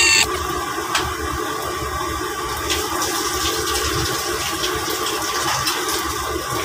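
Steady rushing, sizzling noise of pans of sauce cooking on a gas stove, with a few faint clicks of utensils against the pans.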